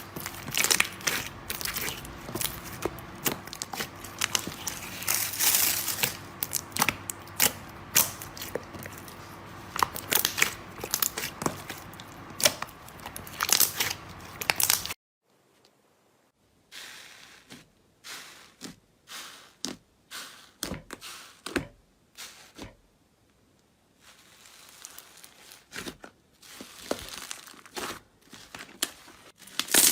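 Slime being squeezed and stretched by hand, giving dense crackling and crunching for the first half. After an abrupt change about halfway through, there are sparser, quieter pops and crackles with short silences between them.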